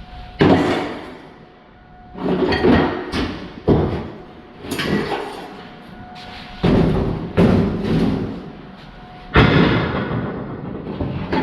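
Heavy cast-iron brake rotors clanking and thudding as they are handled: about eight irregular heavy metal impacts, several with a brief ring.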